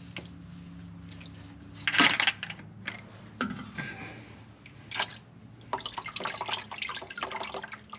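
Used engine oil dripping and splashing into a drain pan as the oil filter is taken off, with a loud sudden splash or clatter about two seconds in and a run of uneven drips and splashes near the end.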